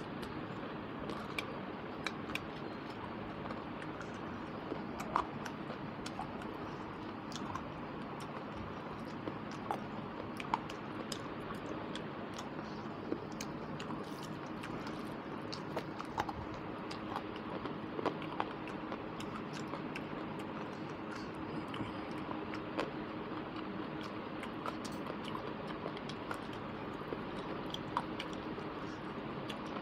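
Close-miked chewing and mouth sounds of a person eating rice and curry by hand: irregular small clicks and smacks of lips and fingers over a steady background hiss and faint hum.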